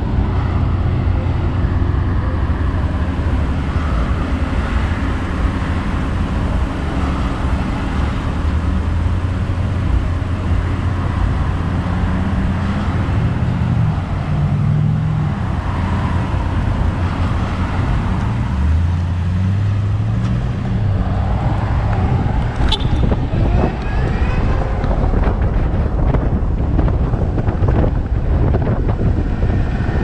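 Road traffic at a stop: a steady low engine hum from an idling pickup truck and cars alongside, with engine pitch rising and falling as vehicles move off. Over the last several seconds the electric motorcycle gets under way and wind noise builds.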